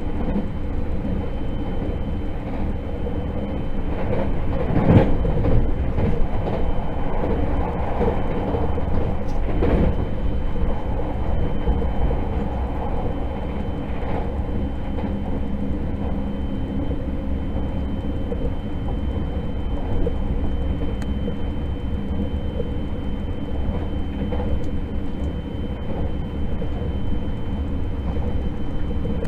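Cabin running noise of a JR 681 / Hokuetsu Express 683 series limited-express electric train at speed: a steady low rumble of wheels on rail with a thin, steady high whine, and a few louder knocks about five and ten seconds in.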